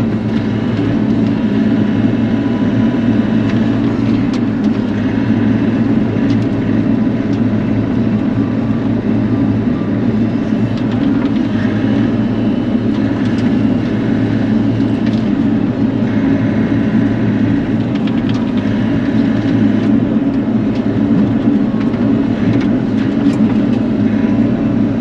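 Bobcat E42 mini excavator's diesel engine running steadily at working speed.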